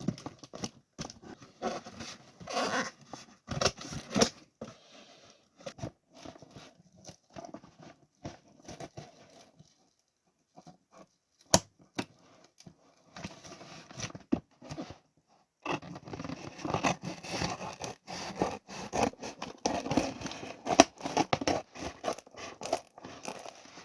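Two cardboard shipping boxes being opened by hand: packing tape cut and torn and cardboard flaps scraped and rustled, with scattered sharp clicks. The handling stops for a second or two about ten seconds in, then picks up again and is busiest near the end.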